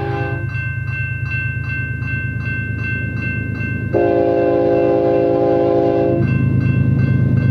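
Grade-crossing warning bell ringing in a quick steady rhythm while the approaching BNSF GE ES44DC locomotive sounds its horn: one blast that ends about half a second in, then a longer blast from about four seconds in to about six, over a steady low rumble.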